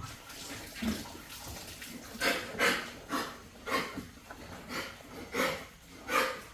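A run of short animal sounds, about two a second, starting about two seconds in.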